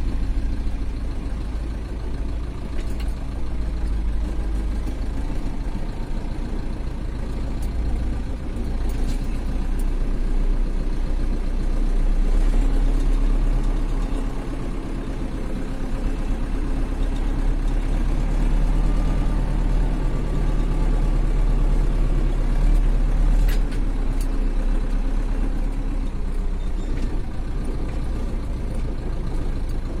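Zetor tractor's diesel engine heard from inside the cab, running steadily with slight swells in speed and loudness.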